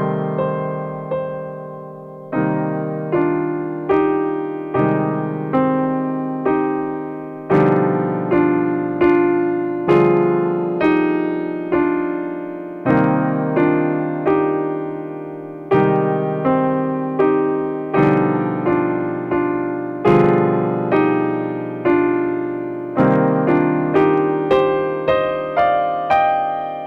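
Solo piano playing a slow piece: a chord rings and fades for about two seconds at the start, then chords and melody notes are struck about once a second, each left to ring out.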